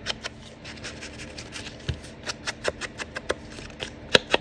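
Ink blending tool dabbed and brushed along the edges of a paper card: a quick, irregular series of light taps and scratches, with a sharper tap near the end.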